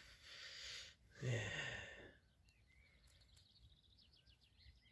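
A man's short breathy vocal sound, like a sigh, about a second in. Then faint small-bird chirps and a quick trill of repeated notes over near silence.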